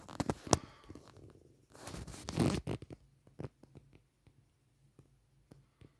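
Computer mouse clicking a dozen or so times, with a short rustling swish about two seconds in.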